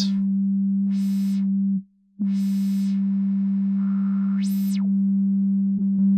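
Unfiltered Audio LION software synthesizer holding a steady single-pitched sine-like note, which breaks off and is retriggered about two seconds in. Over it, the bitcrusher's high hissy noise swells and fades three times as the filter placed after it is swept up and down.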